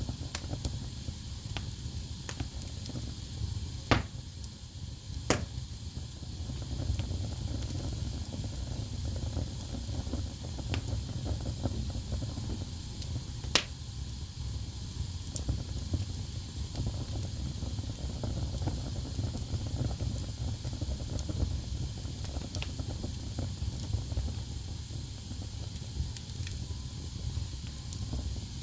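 Wood fire burning in a fireplace: a steady low rumble and hiss with scattered crackles, and a few sharp pops, the loudest about four, five and fourteen seconds in.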